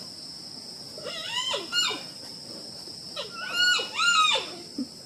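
Several short animal calls that rise and fall in pitch, one small group about a second in and a longer run of about five near the end, over a steady high insect drone.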